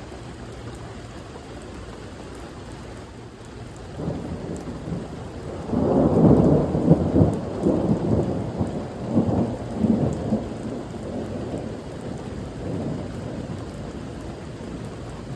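Steady rain with a roll of thunder that starts about four seconds in, swells into several loud rumbling pulses, and dies away a few seconds later.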